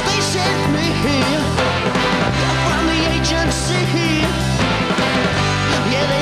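Rock band playing live: drum kit, bass and electric guitar, with a wavering pitched lead line over a steady bass pattern, in a passage between sung verses.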